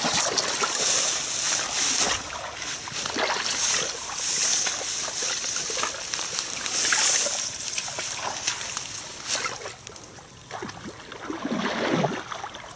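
Intermittent splashing and sloshing of muddy marsh water, loudest in the first several seconds and fading toward the end.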